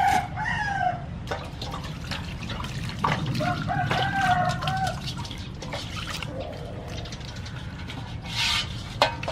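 Water sloshing, dripping and splashing in a large aluminium basin as a whole plucked chicken is washed by hand. A rooster crows in the background at the start and again about three seconds in.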